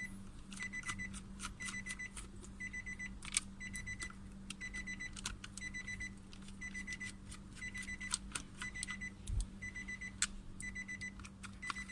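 A car's electronic warning chime beeping steadily, about once a second, with a steady low hum under it. Sharp clicks and taps of handling plastic trim and screws come throughout.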